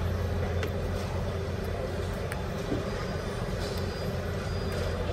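Steady low hum and hiss of a large store's indoor ambience, with a few faint clicks.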